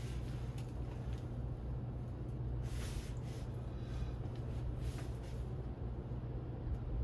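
Craftmade CXL ceiling fan running, a steady low motor hum under a soft rush of moving air, with two brief whooshes about three and five seconds in.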